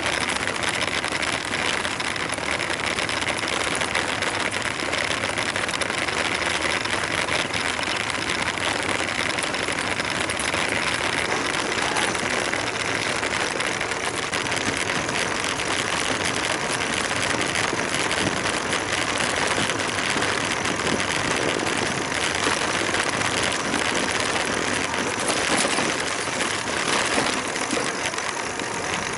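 Steady rolling noise of a bicycle's tyres crunching along a sandy dirt road, with many small ticks of grit under the wheels.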